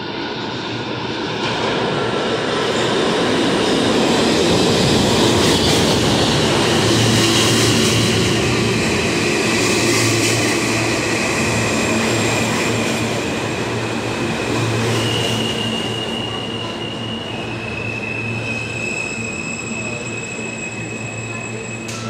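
R160 subway train pulling into the station: a loud rumble and rattle of the cars rolling past, strongest for the first half, then high steady squealing tones as it slows to a stop.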